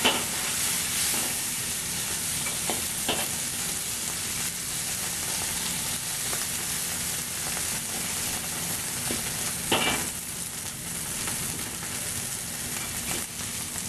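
Snow peas and onions sizzling in a hot wok, the added broth and cooking wine steaming off, while a metal spatula and ladle stir them. A few sharp clinks of metal on the wok stand out, at the start, about three seconds in and just before ten seconds.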